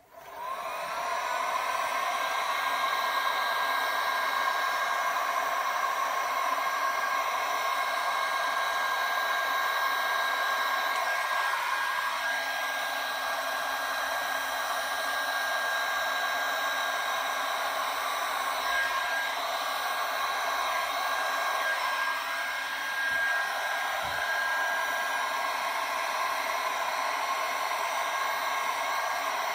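Electric heat gun switched on, its fan motor spinning up with a rising whine over about a second, then running steadily with a constant high whine and a rush of hot air. It is being played over wet epoxy resin.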